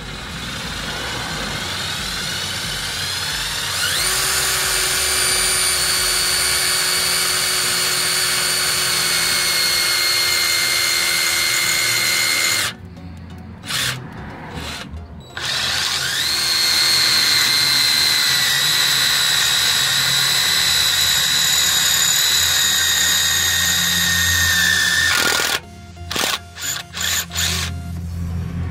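Cordless drill with a titanium-coated bit boring slowly into a broken wheel bolt in a wheel hub to make a pilot hole for an extractor. The motor whine climbs in pitch about four seconds in and runs steady, stops suddenly about halfway with a few short bursts, spins up again and runs steady, and ends with several short trigger bursts.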